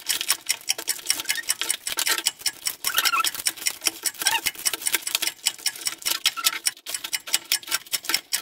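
Headphone box packaging being opened and handled: a dense run of rapid crackling clicks with short squeaky glides, pausing briefly near the end.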